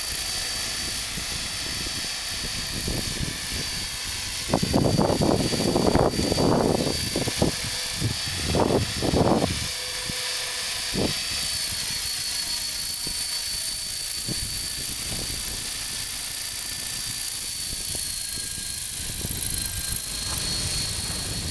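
Electric radio-controlled helicopter (Hurricane 500) lifting off and flying, with a steady high-pitched whine from its motor and rotor. Between about four and ten seconds in come several louder bursts of low noise.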